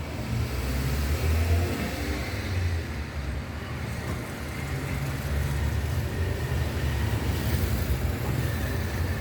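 Low rumbling background noise of road traffic, swelling and easing.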